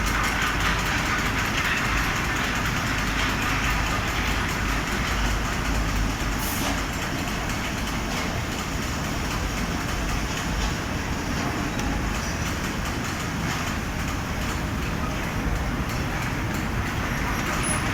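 Large automatic fabric spreading machine running, a steady, even mechanical noise throughout.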